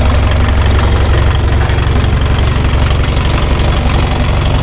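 Volkswagen van's engine idling steadily, a loud, even low rumble.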